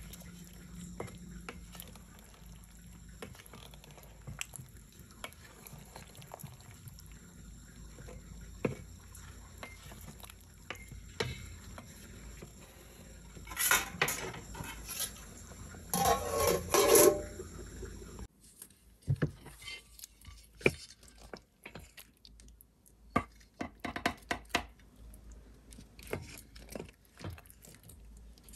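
Cutlery and dishes clinking: spoons and utensils tapping and scraping on plates, scattered light clicks with louder clattering clusters about 14 and 16–17 seconds in.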